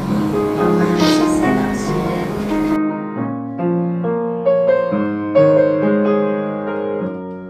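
Gentle piano background music playing slow, held notes and chords. About three seconds in, a layer of voice and hiss drops out abruptly, leaving the piano alone.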